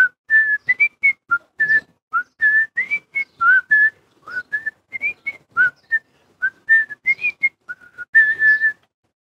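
A person whistling a tune: a quick string of short, clear notes in a narrow range, some sliding up into the pitch, with silence between them.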